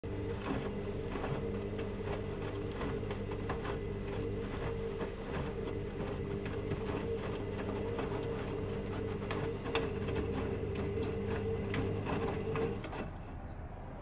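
Hoover Dynamic Next washing machine drum turning in the Cottons 40°C main wash: a steady motor hum with wet laundry sloshing and knocking as it tumbles. The motor stops about a second before the end as the drum pauses in its wash cycle.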